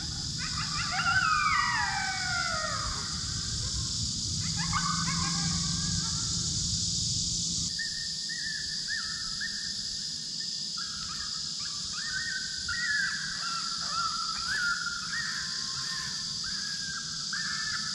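Coyote howls: several long, overlapping wails that fall in pitch. After a cut about eight seconds in comes a string of short, high whimpering whines: the MFK Submissive Beggar coyote sound played from an electronic predator call. A steady high hiss runs underneath.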